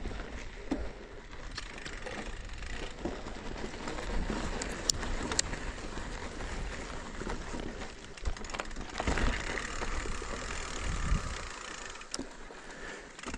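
Mountain bike riding along a dirt track: tyres rolling over stones, with scattered clicks and rattles from the bike and a low rumble that drops away near the end.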